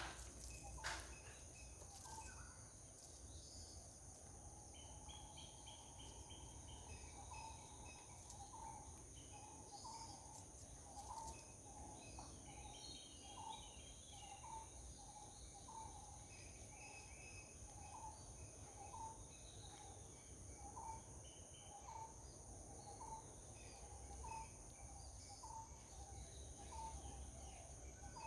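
Garden birds calling faintly: a short, low note repeated about once a second, with scattered higher chirps from other birds. Insects keep up a steady high-pitched drone throughout.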